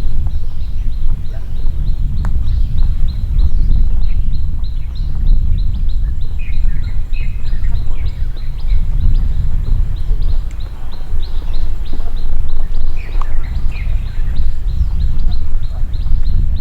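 Birds chirping outdoors over a loud, steady low rumble, with a run of short, evenly spaced high chirps, about three a second.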